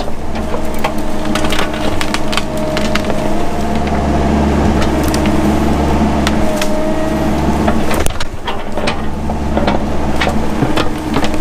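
Mini excavator's engine running steadily under load with a hydraulic whine, while brush and small trees crack and snap as they are torn out. The engine sound dips briefly about eight seconds in.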